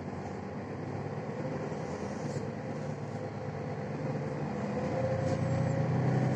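Mercedes-Benz Citaro city bus heard from inside the passenger cabin. The engine and drivetrain are running under load as the bus gathers speed, and the sound grows louder about five seconds in, with a thin whine above the engine note.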